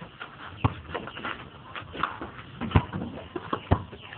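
A few irregular sharp thumps and knocks, the loudest near the end, over a rustling background.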